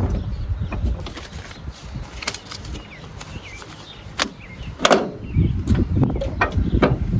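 Handling noise from unpacking a steel floor jack: scattered knocks and clicks as the jack and its packaging are moved about, with a couple of sharper knocks about four and five seconds in.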